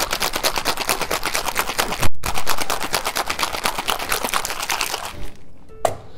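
Ice rattling hard inside a copper cocktail shaker shaken vigorously, a fast even rhythm of about seven knocks a second with a brief break about two seconds in. The shaking stops about five seconds in, followed by a single knock as the shaker is set down on the bar top.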